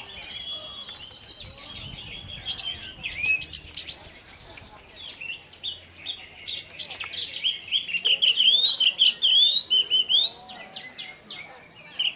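Orange-headed thrush (anis merah) singing a fast, varied run of chirps, whistles and trills in the long, continuous 'teler' style, with short pauses between bursts.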